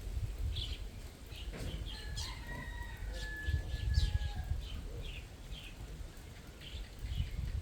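A rooster crows once, a held call about two seconds long starting about two seconds in, among short high chirps from other birds.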